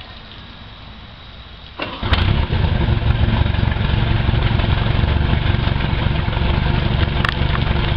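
Sterndrive boat engine, run on a garden hose for cooling water, coming on suddenly about two seconds in and then running steadily at a low idle. Before that only a quiet low rumble is heard.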